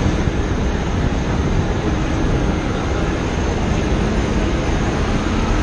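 Steady engine noise on an airport apron: a deep, even rumble from idling apron buses and nearby aircraft, with a faint high whine.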